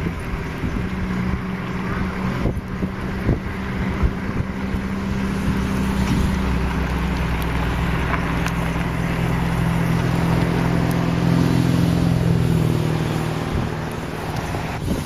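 A vehicle engine idling steadily, a low hum that swells slightly about twelve seconds in, with a few faint clicks.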